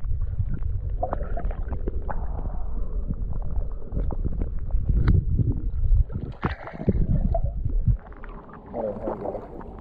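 Water noise picked up by an action camera held underwater: a muffled low rumble with scattered knocks and clicks. About eight seconds in it drops much quieter as the camera comes up to the surface.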